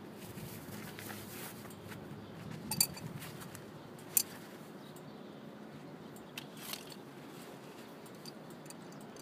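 A few sharp metallic clicks and clinks of hand tools at a motorcycle's oil drain bolt, the two loudest about three and four seconds in, over a faint steady background hiss.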